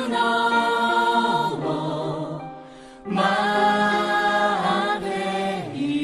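Music: a Japanese anime song with singers holding long sung notes. It drops away briefly about two and a half seconds in and comes back in full at about three seconds.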